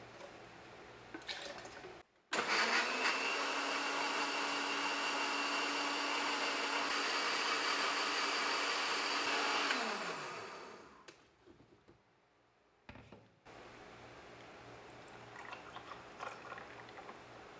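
Countertop blender motor running steadily at full speed, blending a liquid chocolate drink in its plastic jar. Its pitch falls and it winds down as it is switched off, about eight seconds after it starts.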